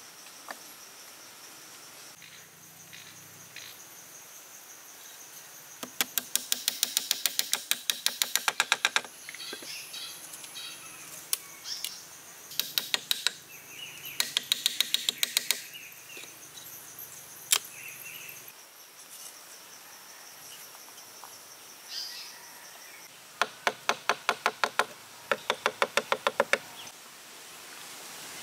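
Rapid runs of sharp knocks, about seven a second, in several bursts of one to three seconds with a few single knocks between. A steady high insect drone runs behind them.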